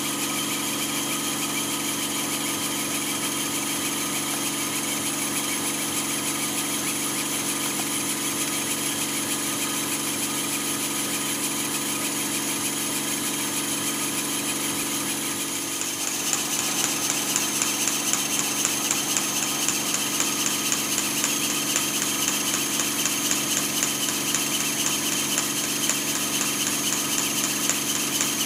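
Twin-cylinder model marine steam engine running steadily. About halfway through, a fast, even ticking beat comes through more sharply.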